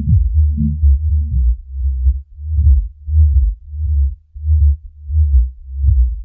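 Electronic music reduced to a deep, heartbeat-like bass pulse. Dense at first, it thins about two seconds in to separate low thumps, about two a second.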